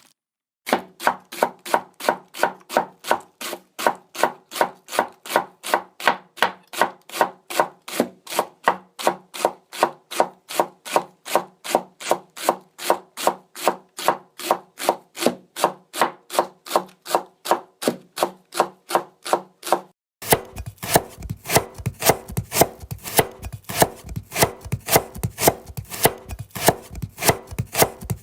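Houchou (Japanese kitchen knife) chopping on a cutting board in an even rhythm, about three strokes a second. About twenty seconds in, the sound switches to a faster, sharper run of cuts.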